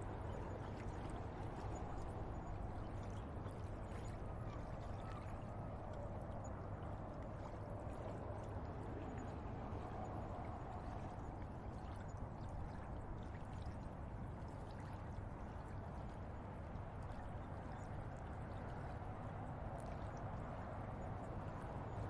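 River water flowing steadily, an even rushing sound, with a constant low hum underneath.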